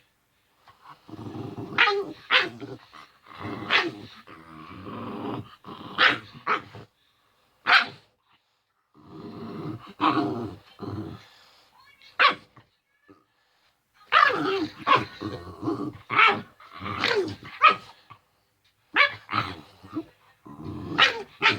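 Pet dog growling and barking in play, a run of short growls and sharp barks with brief pauses between them. These are his normal playing noises.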